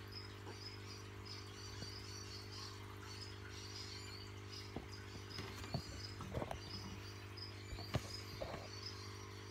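Faint crickets chirping steadily in short, high, evenly repeated pulses over a low steady electrical hum. From about halfway, scattered clicks and rustles of the phone being handled join in.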